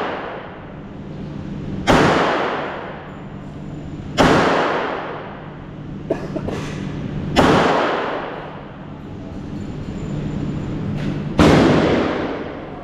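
Gunshots at an indoor shooting range: four loud single shots a few seconds apart, each followed by a long echoing decay in the range hall, over a steady low hum.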